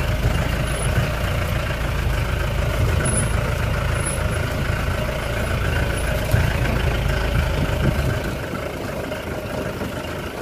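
Wind buffeting the microphone on an exposed hilltop, a rough fluctuating low rumble that eases off about eight seconds in.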